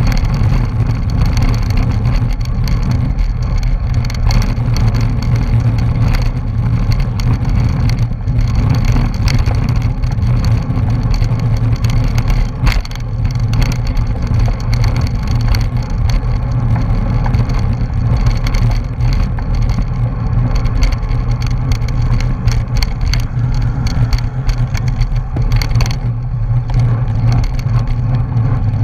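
Steady wind rush and road rumble from a racing bicycle riding in a bunch, heard through a bike-mounted camera's microphone, with scattered small knocks and rattles.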